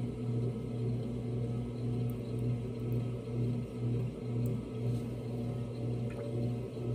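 Electric pottery wheel's motor humming steadily, the hum swelling and fading about every three-quarters of a second as the wheel spins, with a few faint ticks.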